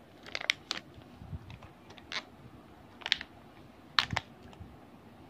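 Light handling noise from a Beyblade booster's plastic packaging: a few short, sharp clicks and crinkles, a small cluster in the first second and then single ones about a second apart.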